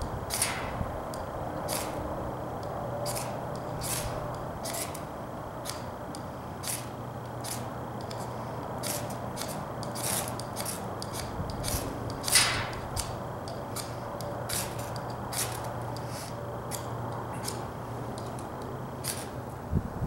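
A knife blade scraped hard down a ferro rod again and again, short rasping strikes at an uneven pace of roughly one or two a second, one louder strike about twelve seconds in.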